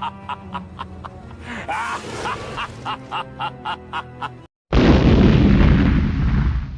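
A short music clip with an even beat, about three strokes a second, cuts off; after a brief gap comes a loud explosion sound effect, a deep boom that fades over about two seconds.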